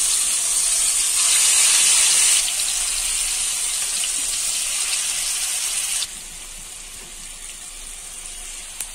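Marinated chicken tikka pieces sizzling as they are laid into hot oil in a kadhai: a loud, even hiss, strongest in the first couple of seconds, that drops off abruptly about six seconds in.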